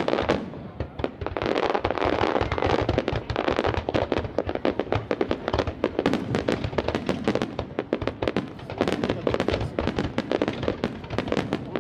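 Fireworks display at full barrage: aerial shells bursting and fan-shaped volleys of shots firing from the launch line, a dense, continuous run of bangs and crackles, many a second, with only brief lulls.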